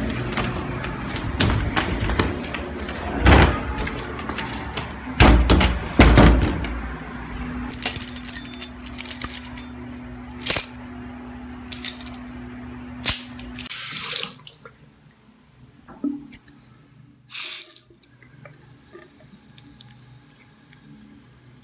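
Household foley sounds one after another. Several loud knocks and thumps come first. From about eight to thirteen seconds in a bunch of keys jangles, over a steady hum. After that, faint water sounds at a bathroom sink.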